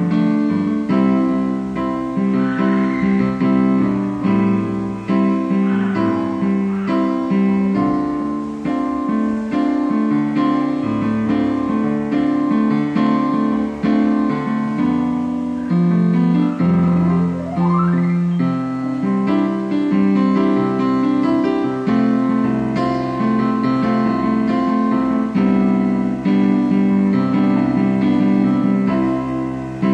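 Portable electronic keyboard playing a piece of music: sustained chords that change every second or so, with one rising pitch slide about seventeen seconds in.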